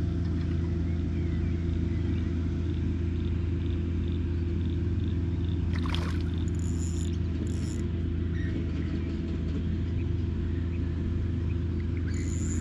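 Steady low rumble throughout, with a short splash about six seconds in as a hooked redfin perch thrashes at the water's surface beside the kayak.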